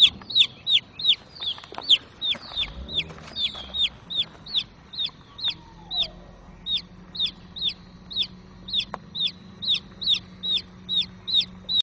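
Baby chick peeping loudly and without pause, about two and a half short calls a second, each one falling in pitch.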